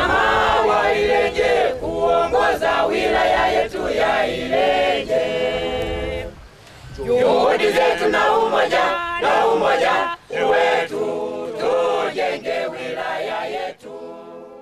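A group of men and women singing together without instruments, a choir song in phrases with short breaks about six and ten seconds in, fading near the end.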